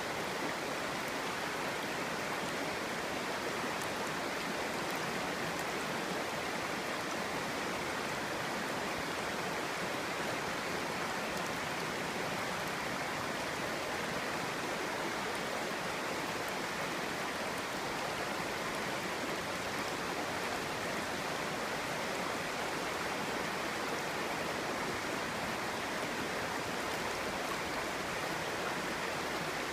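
Clear stream running over rocks: a steady, even babbling and rushing of water.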